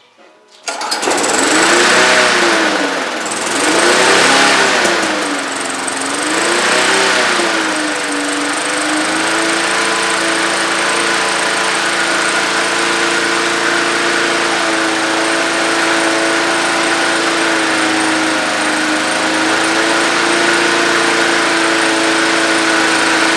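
Lawnmower's small gasoline engine starting up about a second in and surging, its speed rising and falling every couple of seconds, then settling into steady running after about eight seconds. The surging fits an engine that needs a bit of choke at first after its fuel was drained and replaced.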